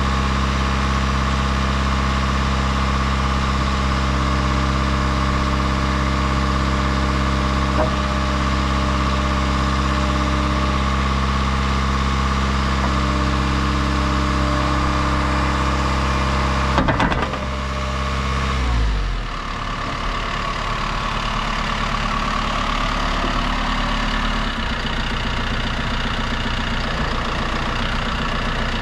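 John Deere 310 SL backhoe's diesel engine idling steadily. About 17 seconds in there is a clunk, and the engine winds down and stops, leaving a rougher steady noise.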